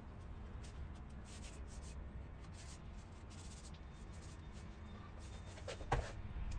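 Hands handling a wooden bowl, with faint rubbing and scraping of wood against the paper-covered bench over a low steady hum. A single sharp knock comes near the end.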